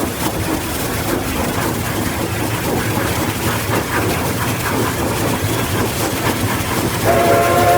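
Locomotive running on the rails: a steady rumble with a fast, uneven rattle of wheels over track. About seven seconds in, a chord whistle of several notes starts sounding.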